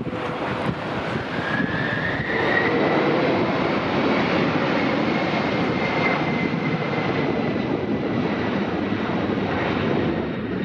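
Jet airliner's engines passing close by: a loud, steady rushing noise with a high whine that rises in pitch about two seconds in and then holds.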